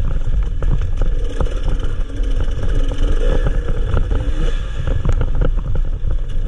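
Enduro motorcycle engine revving up and down as it is ridden hard over a dirt trail, with the bike knocking and rattling over bumps and wind buffeting the microphone.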